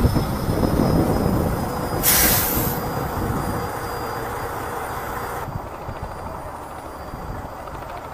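Semi-truck diesel engine running with a low rumble, and a short loud hiss of air about two seconds in.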